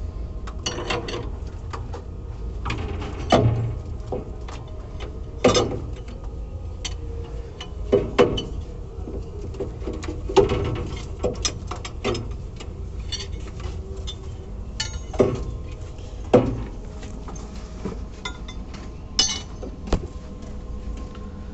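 Irregular sharp clicks and knocks, a second or two apart, as the plastic plug connectors on a boom pump's solenoid valve bank are handled, over a steady low hum.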